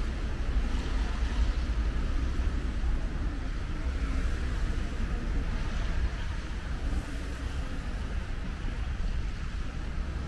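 Steady road traffic running by, with wind rumbling on the microphone.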